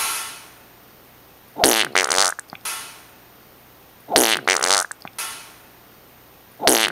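Three short, wavering vocal noises from a person, about two and a half seconds apart, each followed by a breathy hiss.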